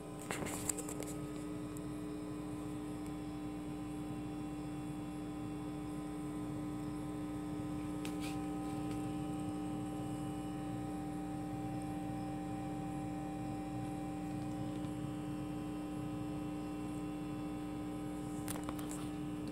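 Steady electrical hum from a Line 6 Spider III guitar combo amplifier idling with nothing played, one strong low tone with a row of fainter higher tones over it. A few faint clicks come near the start, about eight seconds in and near the end.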